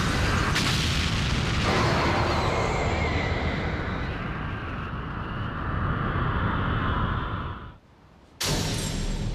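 Cartoon explosion sound effect: a blast with a second hit about a second and a half in, then a long tail that slowly fades. After a short silent gap near the end, another sound starts suddenly.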